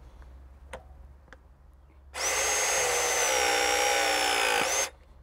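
Pipe press tool running for about three seconds as its jaws crimp a 1/2-inch O-ring press elbow onto steel gas pipe, compressing it into a gas-tight seal. The motor's whine sags slightly in pitch, then cuts off suddenly when the press cycle ends; a couple of faint clicks come before it.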